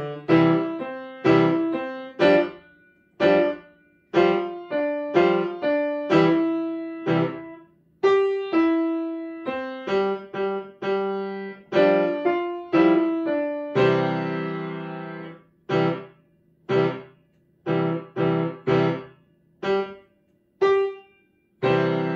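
Grand piano played by hand: a series of struck chords and short phrases, each dying away before the next. The second half is crisp, detached chords separated by short silences, and a final full chord is struck near the end and left ringing.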